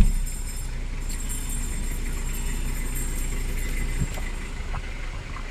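2015 Hyundai Accent engine idling steadily with the air conditioning switched on, running again after its no-start fault was fixed by an ECU repair. A single thump comes right at the start.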